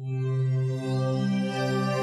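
Intro theme music: a held chord that starts abruptly after a moment of silence and stays steady.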